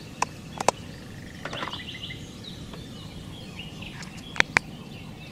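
Plastic leader box being shut, giving two sharp clicks near the start, then two more sharp clicks close together near the end. Birds chirp faintly over a steady outdoor background.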